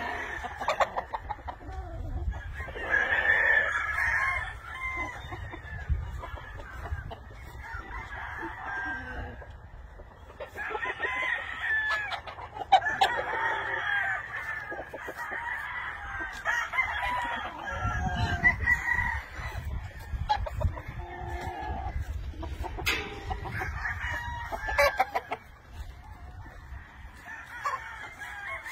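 Many penned roosters crowing one after another, some overlapping, with clucking between the crows.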